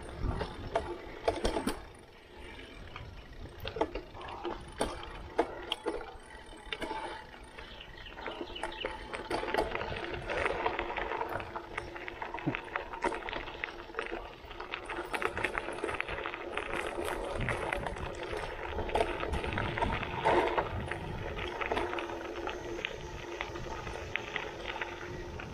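Mountain bike being ridden over a dirt trail and then a gravel path: tyre noise on the ground, with frequent sharp rattles and knocks from the bike over bumps. The rolling noise grows louder and steadier about a third of the way in.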